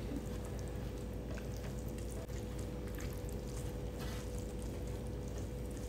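A bare hand mixing rice with wet chilli sauce and pieces of dendeng on a plate: faint, soft, wet squishing with scattered small ticks, over a steady low hum.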